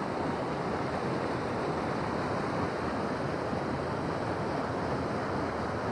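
Fast-flowing river current rushing steadily through white-water rapids.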